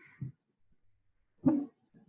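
A dog barking: a few short barks, the loudest about a second and a half in.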